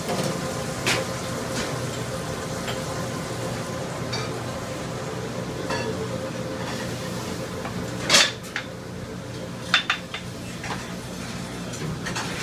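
Commercial kitchen noise: the steady hum of kitchen equipment with metal pans and utensils clattering. The loudest clatter comes about eight seconds in, followed by a pair of sharp clinks.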